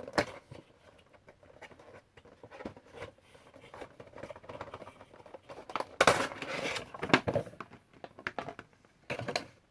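Funko Pop cardboard box and plastic insert being handled and opened by hand: scattered clicks and taps, with louder rustling and crinkling about six seconds in and again near the end.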